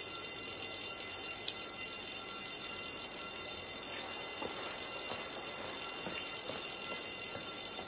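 Fire alarm bell ringing steadily and without a break.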